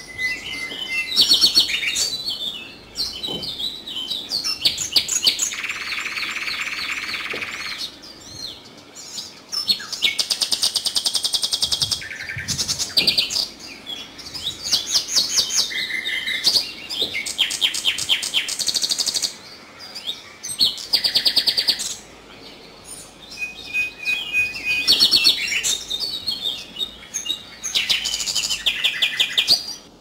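Common nightingale singing: a string of varied phrases of rapid trills, fast repeated notes and clear whistles, separated by short pauses.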